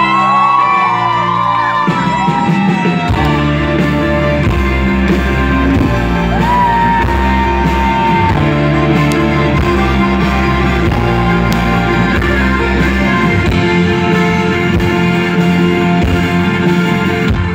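Live band playing an instrumental song intro, with the bass and drums coming in about three seconds in.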